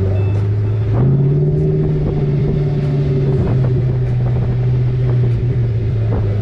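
Car engine and road noise at a steady cruise: a low drone that rises slightly about a second in, then slowly eases lower.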